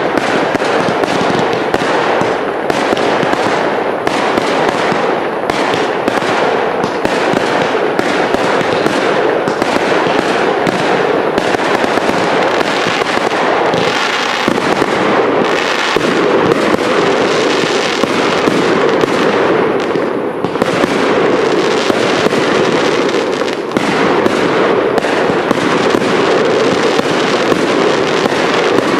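Fireworks cake batteries firing without a break: a dense, rapid run of launches and bursts that goes on throughout.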